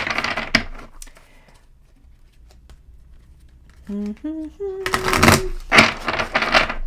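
A deck of tarot cards being shuffled by hand, making a papery rustle and clicking. There is a burst of it at the start, a quiet stretch with a few light taps, and more shuffling near the end. A short hummed voice comes about four seconds in.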